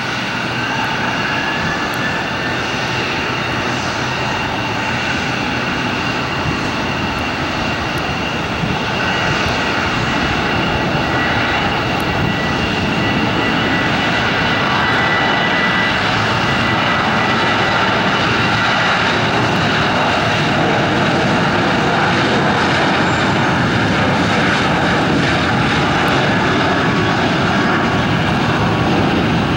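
Boeing 737-700's CFM56-7B turbofan jet engines at takeoff power: a steady rushing jet noise with a high whine held above it, growing slowly louder.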